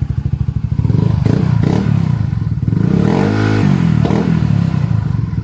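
Yamaha Mio MXi 125 scooter's single-cylinder four-stroke engine through a JVT Power Pipe V3 aftermarket exhaust, idling with a pulsing beat, then blipped a few times from about a second in, with one longer rev that rises and falls in pitch in the middle.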